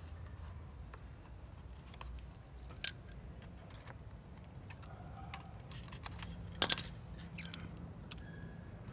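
Pliers twisting and cutting thin wire against a plastic crate: scattered small clicks and scrapes, with a sharp click about three seconds in and the loudest, a quick double click, between six and seven seconds.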